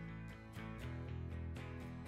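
Background music with plucked guitar notes on a steady beat.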